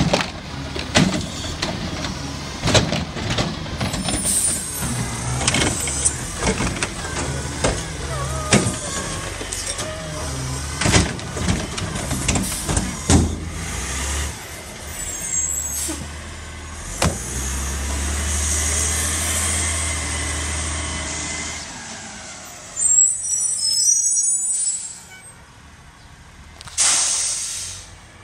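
Garbage truck's cart tipper lifting and dumping wheeled trash carts, with repeated clangs and bangs of plastic carts against the metal hopper over the running truck engine. A steady engine drone follows for several seconds, then air-brake hisses come twice as the truck moves off.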